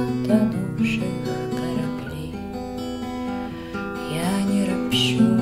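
Acoustic guitar strummed in a slow, steady accompaniment. A woman's singing voice holds a word about a second in.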